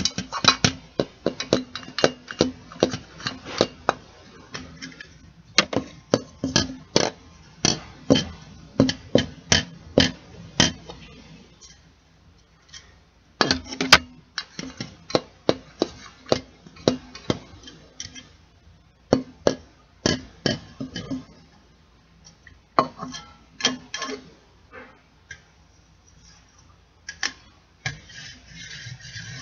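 Tapping on a can in quick, irregular runs of sharp taps, each with a short metallic ring, broken by a few brief pauses. Near the end the taps give way to a softer rustling noise.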